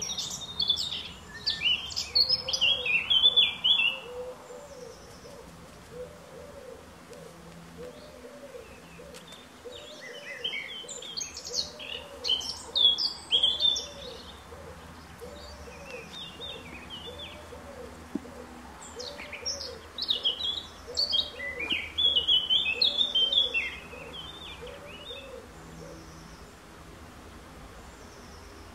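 Songbirds singing in three bouts of quick, high, twittering phrases, over a low hooting note repeated evenly about once a second.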